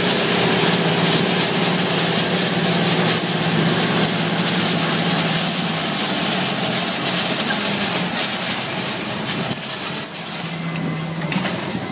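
Mandako Twister vertical tillage disk being pulled through corn stalk residue: a steady crackling rattle of the gangs of discs and rolling basket cutting stalks and flinging soil, over the steady hum of the tractor engine pulling it. The sound eases a little after about eight seconds, with two sharp knocks near the end.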